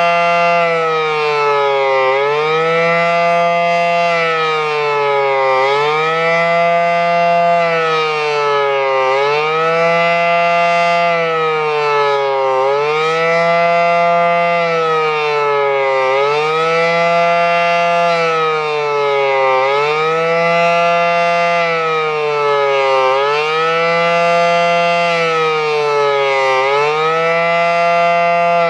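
Federal Signal SD-10 outdoor warning siren sounding a fast wail. Its loud tone rises and falls in a steady cycle, about once every three and a half seconds.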